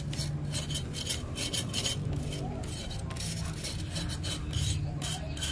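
Roasted cassava being scraped to take off its burnt black layer, in repeated short rasping strokes a few times a second.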